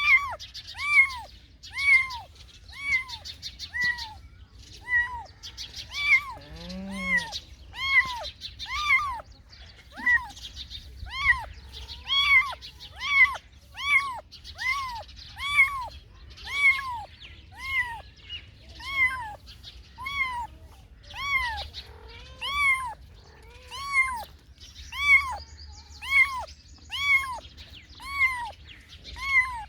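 A cat meowing over and over, short high meows that rise and fall in pitch, about one a second. About seven seconds in comes one lower, drawn-out call that falls in pitch.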